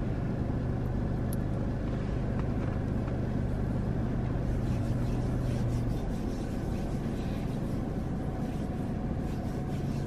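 Steady low hum of a car idling, heard from inside the cabin. The hum weakens about six seconds in and comes back near the end.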